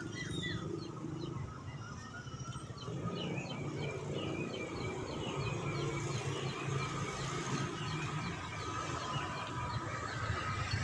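Small birds chirping in quick, repeated calls over a low, steady engine hum that grows slightly louder in the second half.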